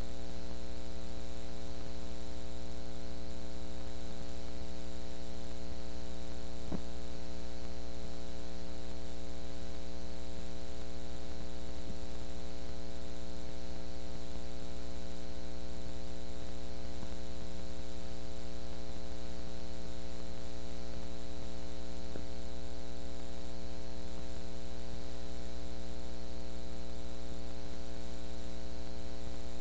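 Steady electrical mains hum with a buzz of many overtones over a faint hiss, unchanging throughout, the noise of the playback audio over a stretch of blank videotape. A couple of faint ticks sit in the hum.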